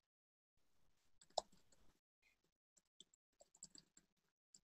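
Near silence broken by faint, irregular clicks, one louder about a second and a half in.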